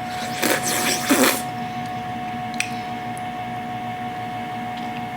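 Two short, airy mouth sounds, a little under a second apart, as a person tries a cup of scalding-hot tea. A steady electrical hum runs under them, and a small click comes a little later.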